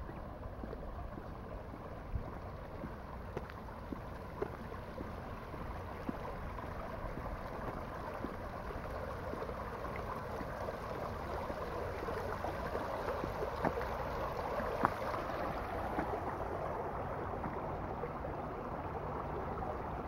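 Small stone-lined stream flowing over rocks, a steady babbling rush of water that grows a little louder through the middle.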